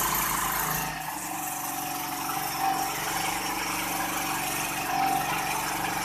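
Small generator set's engine, fuelled by biogas, running steadily just after being restarted, a little quieter from about a second in.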